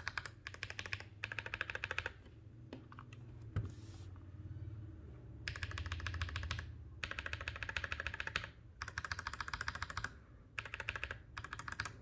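Fast typing on a mechanical keyboard fitted with Panda-style tactile switches and Cherry-profile keycaps. The keystrokes come in quick bursts of about a second each, with a pause of a few seconds near the start.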